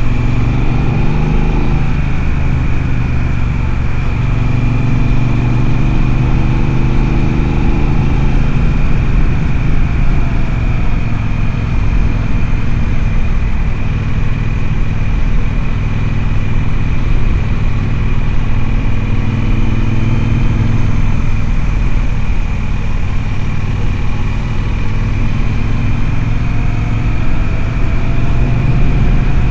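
Triumph Speedmaster's parallel-twin engine running under way at a steady cruise, with wind and road noise. The engine note shifts in pitch in the first few seconds and again near the end.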